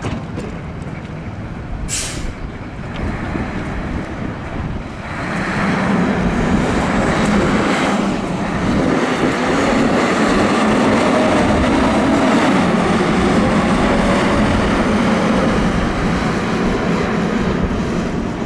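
Fire truck engine and pump running hard, with a loud rushing spray that builds from about five seconds in and then holds steady. A short sharp hiss comes about two seconds in.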